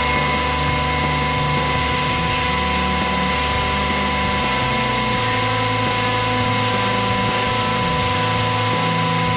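Hydraulic press pump running steadily as the ram descends: a low hum with a steady high whine.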